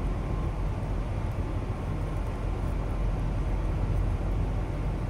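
Steady low rumble of a semi-truck's diesel engine running.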